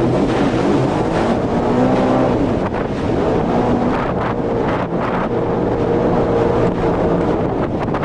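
Sea-Doo FishPro 170 personal watercraft under way: its three-cylinder Rotax engine runs with a pitch that wavers up and down with the throttle, under heavy wind noise on the microphone. A few sharp knocks come near the middle.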